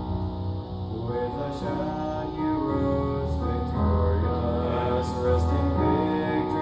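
A man singing a solo with keyboard accompaniment, the voice holding long notes over sustained chords.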